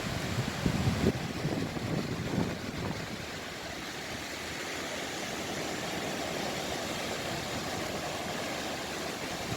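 Sea surf washing ashore: a steady rush of breaking waves, with low rumbling surges in the first few seconds.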